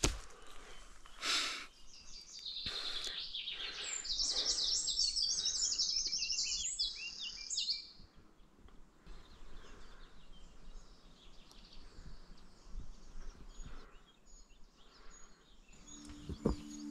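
A small songbird singing: a few high chirps, then a fast, high-pitched warbling trill lasting about four seconds, after which only faint scattered ticks remain.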